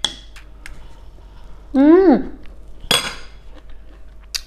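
A metal spoon clinking against a ceramic plate a few times, with one sharp, ringing clink about three seconds in. Around two seconds in, a brief vocal sound rises and then falls in pitch.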